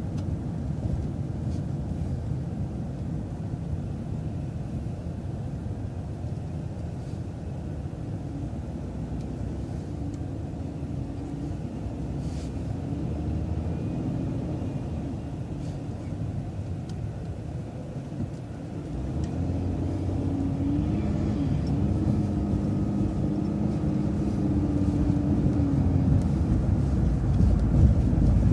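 Bus engine and road noise heard from inside the moving bus, a steady low rumble. A whine rides on top and rises and falls in pitch twice, the second time two-thirds of the way through, when the whole sound grows louder as the bus picks up speed.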